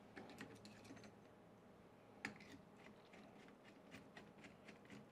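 Near silence with faint clicks and ticks of small screws, parts and a screwdriver being handled, and one sharper click a little over two seconds in.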